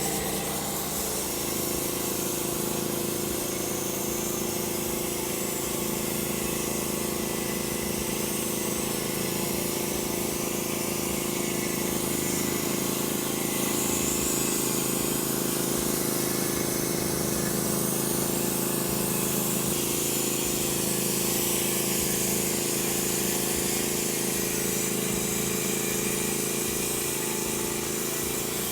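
Gas engine of a Norwood HD36v2 portable bandsaw mill running steadily under load while the band blade cuts the length of a 6x6 oak log, a continuous engine hum under the hiss of the blade in the wood.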